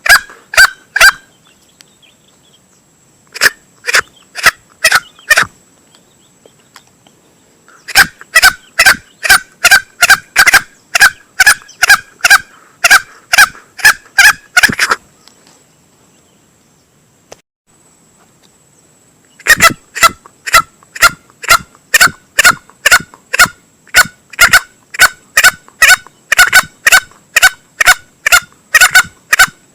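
Male green junglefowl calls used as a hunting lure: runs of short, sharp notes at about two a second, broken by pauses of a few seconds, with the longest run in the second half.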